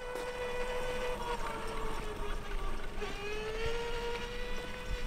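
Motor of a child's ride-on toy quad whining steadily as it drives along; the pitch sags about three seconds in, then climbs back up.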